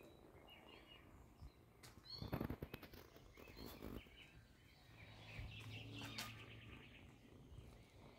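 Near silence with faint outdoor ambience: soft scratching and rustling as kittens claw their way over a shirt sleeve, with faint short bird chirps. A faint low hum comes in about five seconds in and lasts about two seconds.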